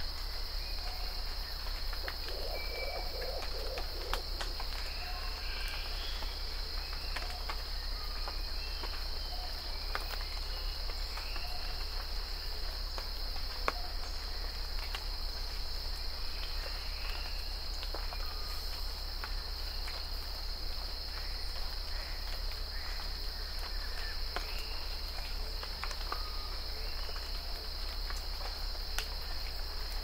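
Tropical rainforest morning ambience: a steady high insect drone over a low steady rumble, with scattered bird calls and occasional sharp drips of rain falling on leaves. A short run of low pulsed call notes comes about two seconds in.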